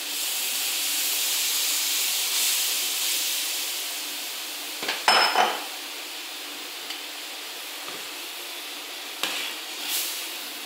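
Fish and seafood stock poured into a hot paella pan of fried rice, hissing and sizzling loudly for the first few seconds, then settling to a steadier, quieter sizzle. A few knocks about five seconds in, and a metal skimmer clinks against the steel pan near the end.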